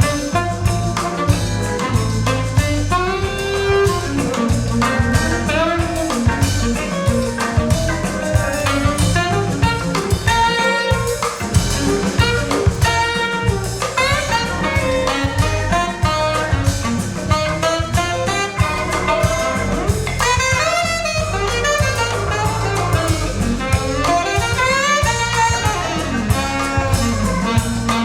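Jazz with horns and a drum kit, played back through hi-fi loudspeakers.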